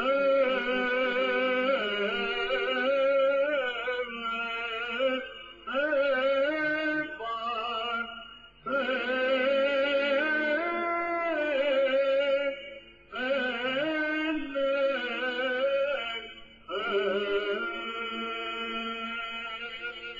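Chant sung in long phrases with short breaks between them, the pitch wavering and sliding within each phrase. The last note is held for several seconds and fades near the end.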